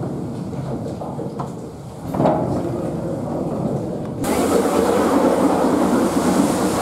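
Steam-driven mill machinery running with a steady low rumble. About four seconds in, the sound changes suddenly to the beam engine itself, louder and with a steady hiss of steam over its running.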